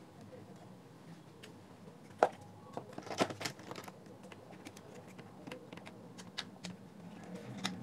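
Hard plastic clicks and light scraping as the internal assembly of a JBL Pulse speaker is slid into its outer grille tube and the end cap is seated. The sharpest click comes about two seconds in, a quick cluster follows around three seconds, and scattered smaller clicks come later.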